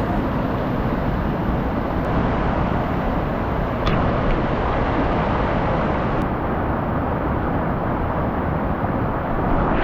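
Rushing river water: a loud, steady, even rush of noise with a couple of faint clicks.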